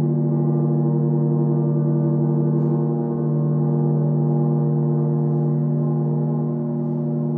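French horn and tuba holding long sustained notes together, a steady drone-like chord with a slight wavering, briefly dipping about three seconds in.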